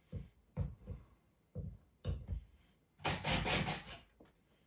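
A few short knocks of the bracket and drill being set against the ceiling, then a cordless drill runs for about a second, its bit boring into the ceiling drywall and wood.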